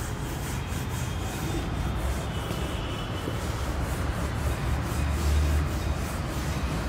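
Whiteboard duster wiping marker writing off a whiteboard in quick back-and-forth strokes, a dry rubbing swish about two or three times a second, over a steady low rumble.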